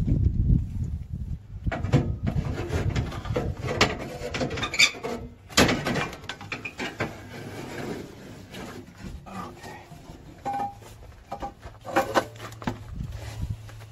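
Irregular metal knocks, clunks and scraping as a turbocharger is handled and fitted onto the exhaust manifold. A low steady hum comes in about ten seconds in.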